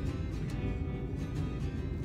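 Background music with a strummed guitar and a steady beat.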